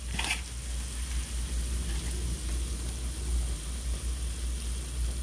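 Browned sausage and its grease sizzling steadily in a skillet as handfuls of flour are sprinkled in for a roux, with a short tap or rustle just after the start.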